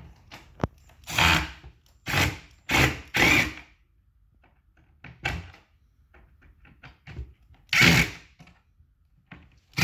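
Screws being driven tight into a base cabinet's toe-kick brackets: a sharp click, then six short bursts of driving noise with pauses between them.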